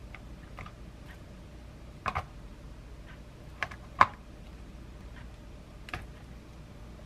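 Plastic rice paddle scooping cooked rice and knocking against a plastic container, giving a few sharp clicks. The loudest click comes about four seconds in.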